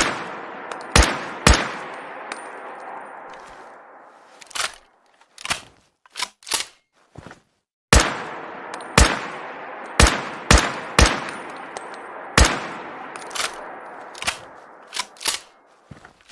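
Rifle sound effect: a dozen or so sharp rifle shots, each with a long echoing tail, fired singly and in quick runs. Between the two runs of shots come several shorter, quieter clicks.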